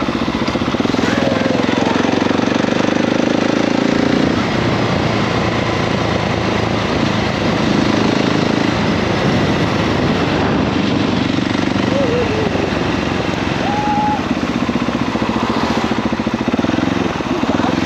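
KTM 690 SMC-R's single-cylinder engine running, its firing pulses loud and close on the microphone.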